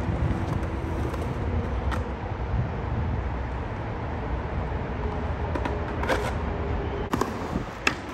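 Skateboard wheels rolling over concrete, a steady rumble, with a few sharp clacks of the board and a last sharp one near the end as the board goes onto a metal handrail.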